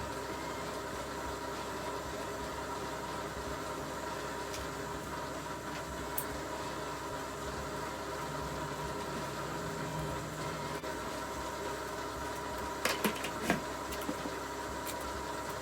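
A machine running steadily with a constant hum of several tones, with a few sharp clicks or knocks about 13 seconds in.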